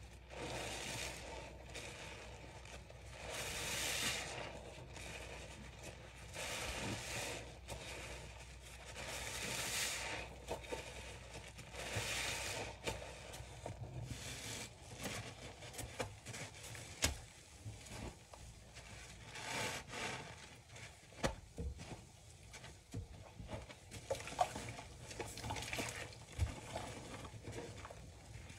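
Foam-soaked bath sponges squeezed by rubber-gloved hands in a metal basin of thick suds: wet squelching and fizzing foam crackle, in repeated swells a couple of seconds apart, with sharper crackles and clicks in the second half.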